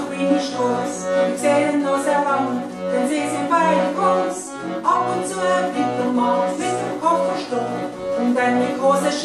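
A woman singing a Swiss German dialect chanson, accompanied by piano accordion and acoustic guitar, over a steady pulse of low bass notes.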